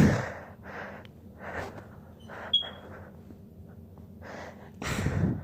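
A woman stifling sneezes she is trying to hold back: one sharp sneeze right at the start, a few short breaths, and a longer muffled sneeze near the end.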